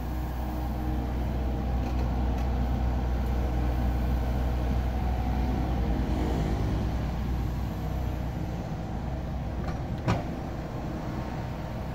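Steady low rumble of a vehicle running, with one sharp knock about ten seconds in.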